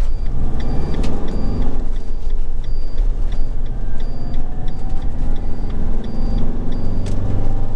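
Motorhome engine and road noise heard from inside the cab as it drives into a roundabout, the engine pitch rising early on. The turn indicator ticks steadily through it, about three ticks every two seconds.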